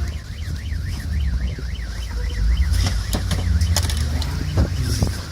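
A car alarm warbling fast up and down, about three to four sweeps a second, set off as snow from a slow avalanche presses on parked cars. It fades about halfway through. A run of sharp knocks and cracks follows, over a steady low rumble.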